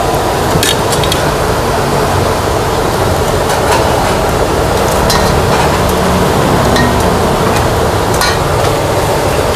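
Busy street-food stall ambience: a steady, loud hiss with a low rumble under it, broken by a few sharp clinks and knocks.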